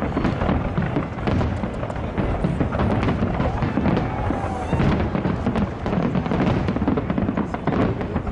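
Fireworks display going off without a break: a rapid, dense run of bangs and crackles over a steady low rumble.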